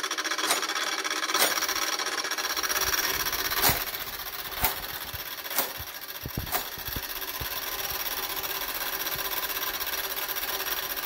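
Gamewell fire alarm telegraph system sending a box signal: a steady clockwork whirring with sharp mechanical clicks about a second apart, two near the start and then four in a row, as the code strokes come through.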